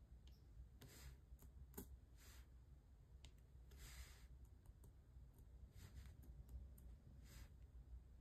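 Faint clicks of a diamond-painting drill pen setting resin drills onto the canvas, with short rattling swishes from the drills in the plastic tray, over a low steady hum.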